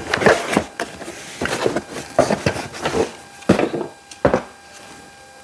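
Cardboard and paper packaging being handled and rustled, with scrapes and sharp knocks as vacuum parts are taken out of the box; it dies down near the end.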